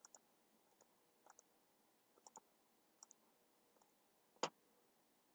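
Soft computer mouse clicks as shapes are selected one after another, mostly in quick pairs about once a second, with one louder click near the end.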